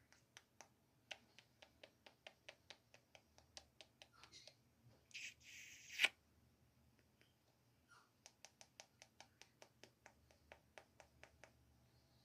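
Faint runs of quick, sharp clicks, about four or five a second, from a small pet parrot (conure). About five seconds in there is a brief hissy rush ending in one louder click, then a second run of clicks.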